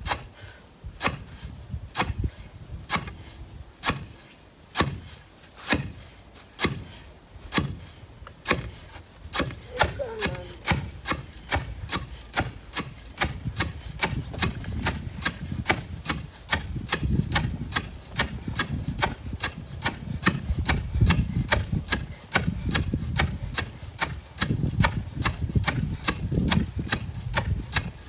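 Two wooden pestles pounding pearl millet (mahangu) in a wooden mortar in turns, each stroke a sharp knock. The strokes come about once a second at first and quicken to about two a second from about a third of the way in, with a low rumble under them in the second half.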